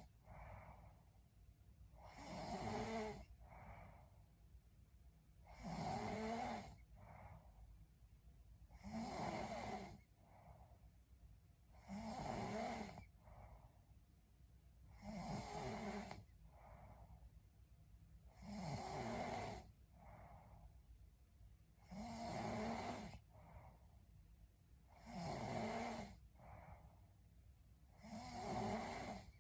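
A young woman snoring in her sleep: a snore about every three and a third seconds, each lasting about a second and followed by a softer breath.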